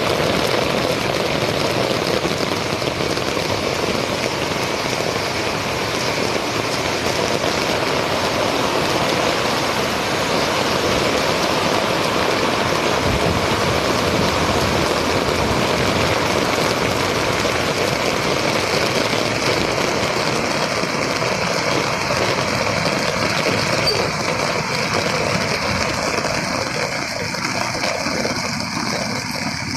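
Heavy rain pouring down steadily, heard from under an umbrella, as a dense, even hiss.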